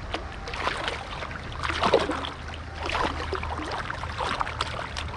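River water moving and splashing along the bank, with irregular splashy surges about once a second over a steady low rumble of wind on the microphone.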